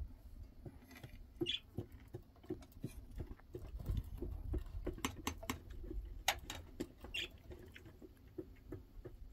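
Small caged pet bird moving about its wire cage: irregular light clicks and taps, with a couple of faint short chirps.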